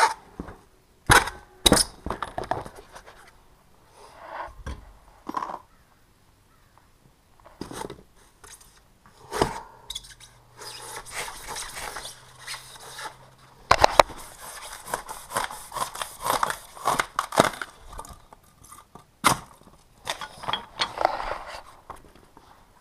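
Hands assembling the wheels onto an air compressor's frame: sharp clicks and knocks from a wheel, its bolt, washers and nut, between stretches of rustling and scraping from the cardboard and styrofoam packing underfoot.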